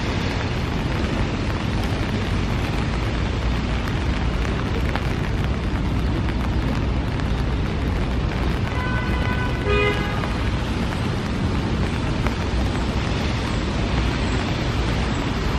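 Steady city background noise: a low traffic rumble under a continuous hiss of rain. A brief pitched tone sounds about nine seconds in.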